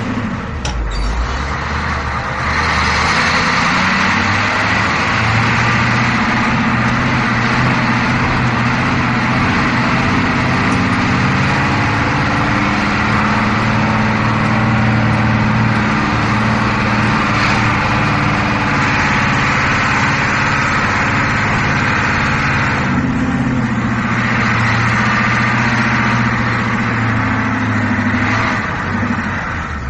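Bus engine running as the bus drives, a steady low drone with road noise. Its note changes briefly about two seconds in and again about two-thirds of the way through.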